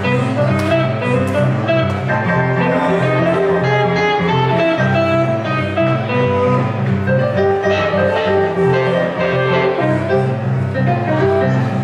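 Live band music: a hollow-body archtop electric guitar playing over a stage keyboard, with a steady low bass line moving beneath.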